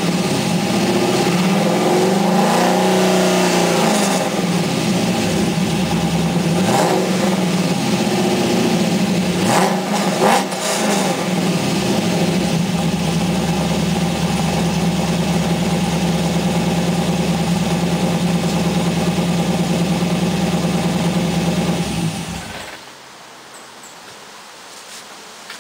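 Chevrolet LS1 5.7-litre V8 in a Nissan 240SX running through a single 3-inch exhaust with one muffler: it is revved up and down a few times in the first eleven seconds, then settles to a steady idle, and cuts off about 22 seconds in.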